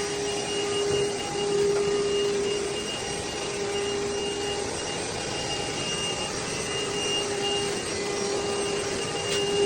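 A machine running steadily: an even rushing noise under a steady hum that drops out for moments a few times, with a fainter high whine above it.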